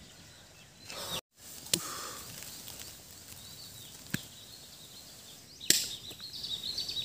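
Quiet outdoor ambience with three short, sharp clicks spread across it, cut by a brief moment of total silence about a second in. Near the end a high, warbling chirping sets in.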